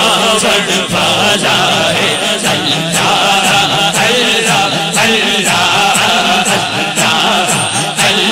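Amplified devotional zikr chant: a lead male voice over a PA with a crowd of men chanting along continuously, over a steady rhythmic beat a few times a second.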